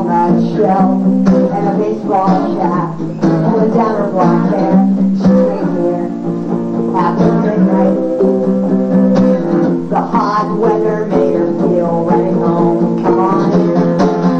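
Strummed acoustic guitar playing a folk-punk song, recorded live.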